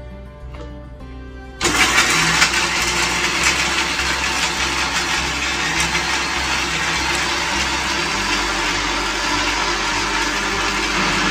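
Electric grinder switched on about a second and a half in, then running steadily as it grinds a jar of roasted whole spices (fennel, coriander and cumin seeds, peppercorns, cloves, cardamom) into powder. Background music before it starts.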